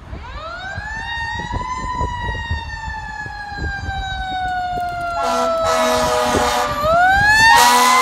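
Fire engine's mechanical Q siren winding up to its peak and slowly winding down, with an air horn blasting about five seconds in. The siren is peaked again just before a second long air horn blast near the end. Both grow louder as the engine approaches.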